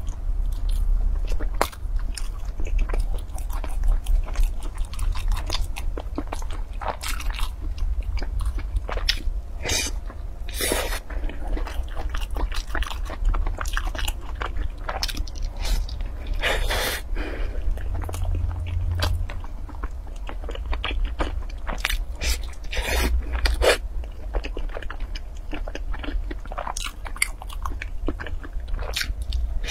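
Close-miked eating: a person biting and chewing crunchy food, with many small crackles and wet chewing. Louder crunches come about 10, 17 and 23 seconds in, over a steady low hum.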